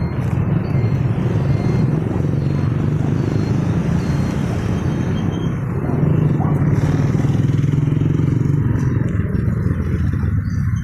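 Steady low rumble of wind and road noise on the microphone of a bicycle-mounted camera while riding in street traffic, easing off near the end.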